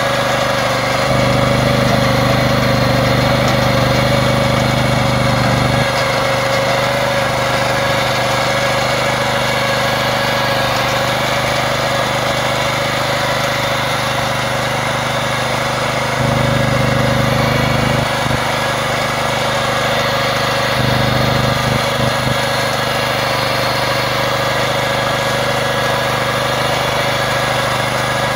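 Pasquali XB40 two-wheel tractor's petrol engine running steadily under load as it drives a rotary plough through the soil. Its low note swells louder three times for a few seconds.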